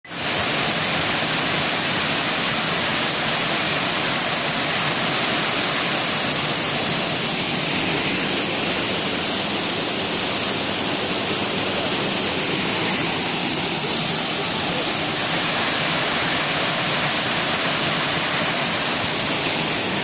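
Waterfall and the rocky river below it rushing: a loud, steady wash of falling and tumbling water.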